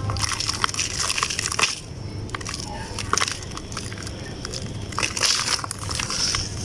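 Damp chunks being crushed and crumbling apart: a dense run of soft crackles and wet crunches, with louder bursts about one and a half seconds in and again around five and six seconds in.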